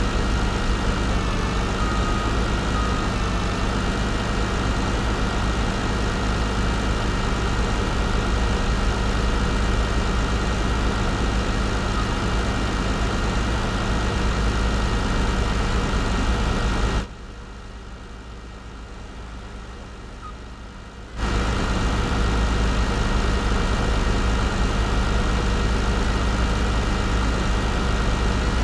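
Engine of a Kubota FS20 cutting machine running steadily at an even speed. The sound drops sharply for about four seconds past the middle, then comes back unchanged.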